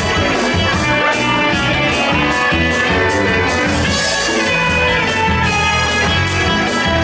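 A live rock band playing, with electric bass and a drum kit keeping a steady beat.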